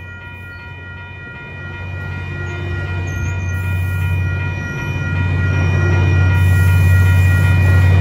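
Caltrain passenger cars rolling past with wheel and rail noise, while the diesel locomotive's low engine rumble grows steadily louder as it approaches. A steady high tone holds unchanged throughout.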